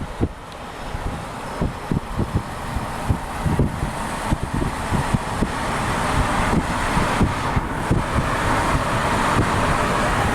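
Car driving, its road and tyre noise growing steadily louder, with wind buffeting the microphone in low rumbling gusts.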